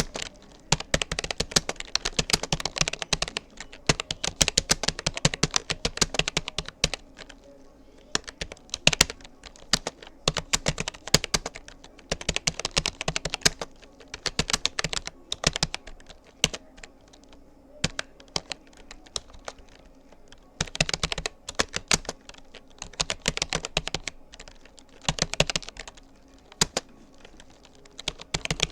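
Typing on a Rapoo computer keyboard: rapid runs of keystroke clicks in bursts, broken by short pauses of a second or so, with a faint steady hum under them.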